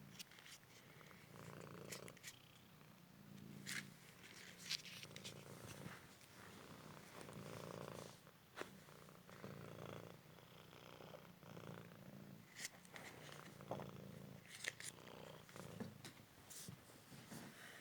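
Cymric cat purring softly and steadily, the purr swelling and easing in slow waves, with a few faint clicks scattered through it.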